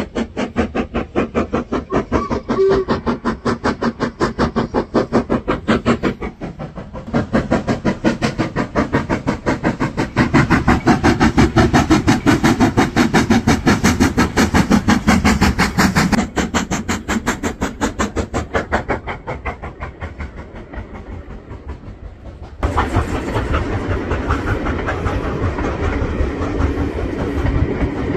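Steam locomotive 44871, an LMS Stanier Black Five, working past with its exhaust beating in fast, even chuffs that grow louder and then fade. About three quarters of the way through, a steady rumble of the coaches rolling by takes over.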